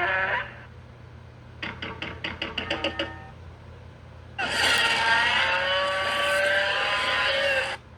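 Airazor sound effects from Transformers: Rise of the Beasts, played one after another: a pitched sound cutting off about half a second in, a quick run of about ten clicks, then a long dense effect of many gliding tones lasting about three and a half seconds.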